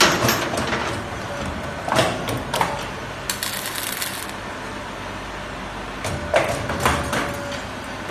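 Automatic steel wire bending and welding machine running through its cycle: groups of metallic clanks and clicks from the bending and clamping mechanism near the start, about two seconds in and about six seconds in. A hiss about a second long comes a little after three seconds, as the wire is welded in a shower of sparks.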